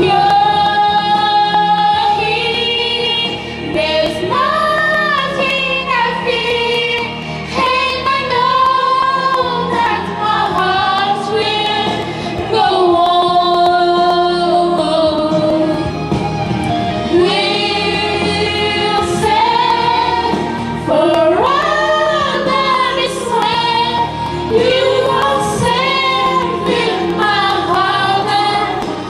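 Music with a woman singing a melodic line in long held notes.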